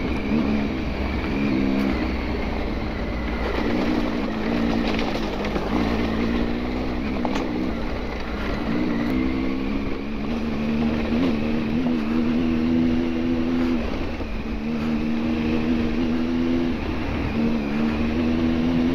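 Motorcycle engine running under way, its note easing off and picking back up every few seconds as the throttle is worked, over a steady low rumble.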